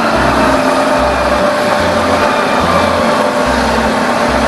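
Concrete mixer truck driving past with its engine running and steady road and traffic noise.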